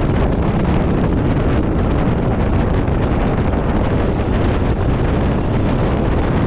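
Steady wind noise rushing over the microphone of a camera on a road bike at about 45 km/h.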